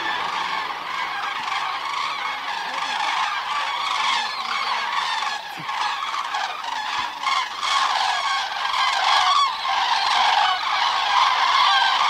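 A flock of common cranes trumpeting in flight: many birds calling at once in a continuous chorus, louder in the last couple of seconds.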